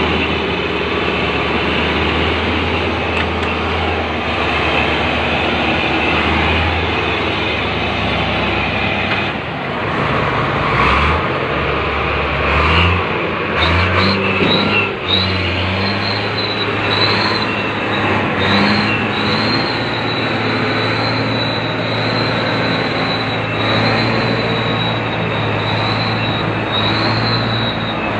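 Heavy diesel engines of a crawler bulldozer and a log-laden Mercedes-Benz 3836 timber truck working hard under load, their drone shifting in level now and then. From about halfway a thin, steady high whine runs on above the engines.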